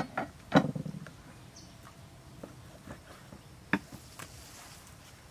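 Scattered knocks and clicks of food preparation: a knife, raw beef and utensils handled on a wooden chopping board and table. The loudest is a dull thud about half a second in, with two sharp clicks near four seconds.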